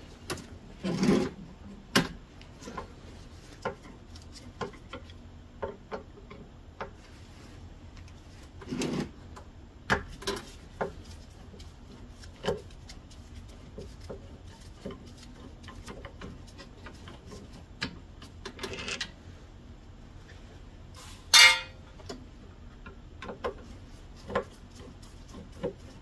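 Phillips screwdriver working the two screws loose on a Troy-Bilt snow thrower's carburetor: scattered light metallic clicks and ticks, with a few short scraping rasps and one louder scrape near the end.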